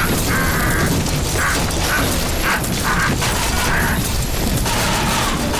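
Animated action sound effects of a meteor barrage: a steady low rumble of explosions, with a metallic clang-and-scrape about twice a second as the meteors strike a spinning metal disc shield and throw off sparks.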